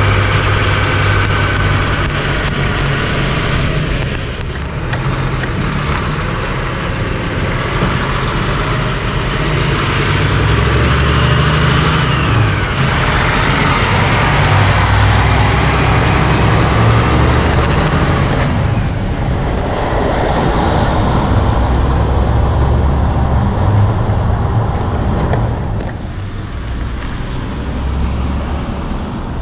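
Semi-tractor's diesel engine pulling a loaded curtain-side trailer and passing close by, its note rising and falling as it works through the gears. Near the end it gives way to lighter road traffic.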